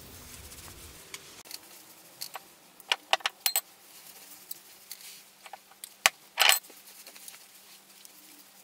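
Gloved hands rustling and crinkling as they gather mayonnaise-coated hair into a bun, with a few sharp crinkles: a cluster about three seconds in and a louder one about six and a half seconds in.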